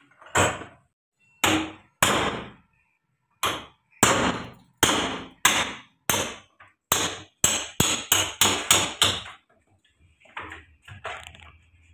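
Hammer blows on a metal engine-mount bracket clamped in a bench vise: about fifteen sharp, ringing strikes, coming faster, about three a second, in the last few seconds. A few lighter knocks follow near the end.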